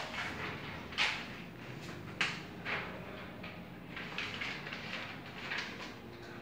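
A few short scuffs and knocks, the three loudest in the first three seconds, over a low steady hum.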